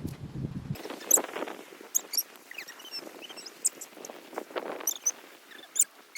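Many short, high chirps and squeaks from small animals, some sliding down in pitch, with a few brief rustling sounds.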